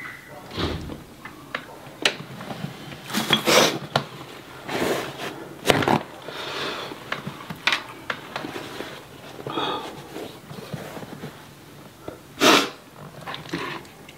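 Close-miked eating sounds: chewing and wet mouth smacks in short irregular bursts, the loudest one about twelve seconds in, with paper napkin rustling partway through.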